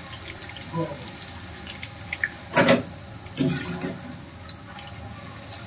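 Raw banana slices frying in hot oil: a steady sizzle with small crackling pops, and two louder bursts of sizzling about two and a half and three and a half seconds in, as more slices go into the oil.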